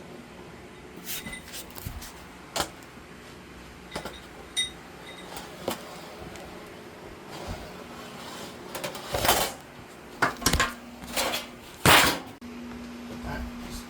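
Scattered metal clinks and knocks from tools and sheet-metal parts being handled, some ringing briefly, with louder clattering and scraping rattles about two-thirds of the way in. A steady low hum starts suddenly near the end.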